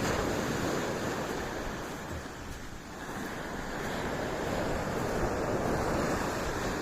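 Sea surf washing onto a beach, rising in one swell at the start and another about two-thirds of the way through.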